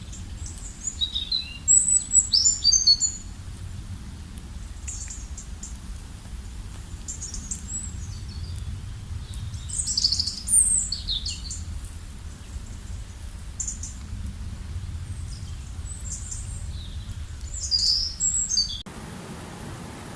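Songbirds chirping and trilling in short high phrases, busiest about two and ten seconds in, over a low steady rumble. Near the end it cuts suddenly to a steady rushing noise.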